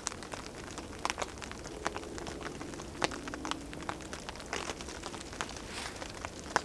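Small fire of wet sticks and cedar bark crackling, with scattered irregular pops and snaps, in rain.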